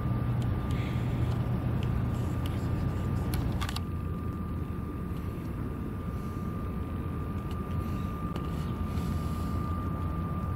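Steady low outdoor rumble of distant traffic and machinery by the harbour, with a faint steady high whine over it. There is a short click about three and a half seconds in where the recording is cut.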